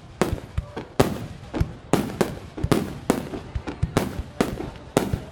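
Aerial fireworks bursting: a continuous irregular string of sharp bangs, about three a second, each trailing off briefly.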